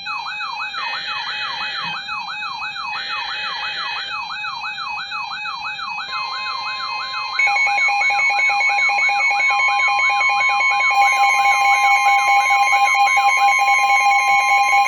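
Emergency Alert System tones for a severe thunderstorm warning on NOAA Weather Radio. Harsh buzzy bursts of SAME header data sound over a weather radio's warbling siren alarm. About six seconds in, a steady alert tone begins, and a second, louder steady tone joins about a second later and holds.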